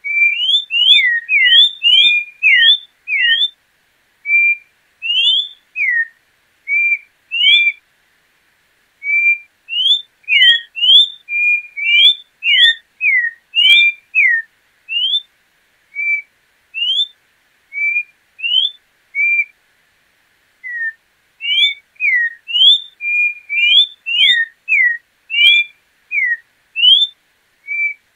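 João-pinto (orange-backed troupial) singing: a long series of loud, clear whistled notes, many sliding up or down, delivered in phrases with short pauses between them.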